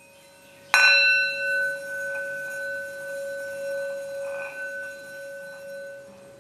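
A bell struck once about a second in, its tone ringing on with a slow waver and fading away over several seconds.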